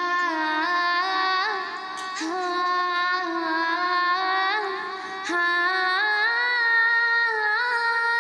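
A single female voice singing a wordless, ornamented opening melody of a hamd, unaccompanied: long held notes that slide and turn at each change, with short breaks about two and five seconds in.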